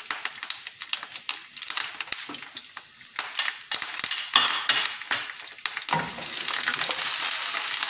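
Chopped garlic, ginger, green chillies and curry leaves sizzling and crackling in hot olive oil in a non-stick frying pan, with sharp ticks from a spoon against the pan. From about six seconds in the sizzle turns into a steadier, louder hiss as the pan is stirred with a wooden spatula.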